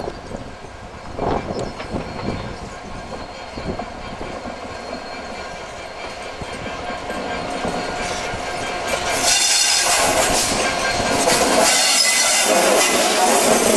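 Two coupled Class 56 diesel locomotives with Ruston-Paxman V16 engines approach and pass close by. Their engines grow steadily louder and are loudest from about nine seconds in, as the locomotives go past.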